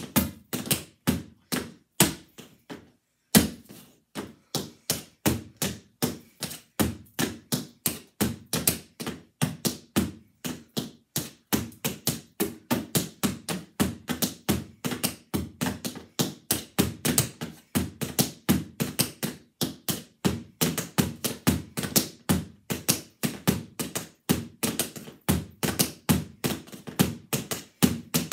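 Tap shoes striking a portable tap mat: a continuous run of sharp metallic taps, several a second in shifting rhythms, with a brief pause about three seconds in.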